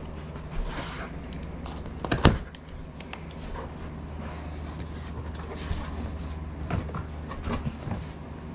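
Scattered knocks and clunks of things being handled, with one loud knock about two seconds in, over a steady low hum.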